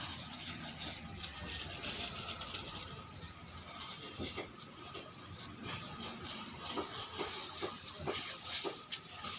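Hands spreading and rubbing salt over a raw goat skin, a run of irregular gritty scrapes and small clicks: salt-curing a freshly slaughtered hide for leather.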